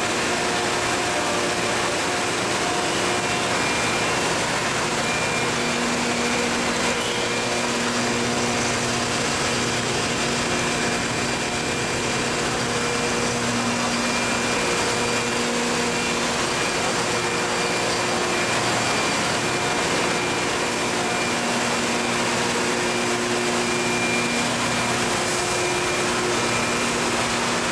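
Dry ice production machine running steadily as it turns out dry ice: an even whirring hiss, with a low hum that fades in and out every few seconds.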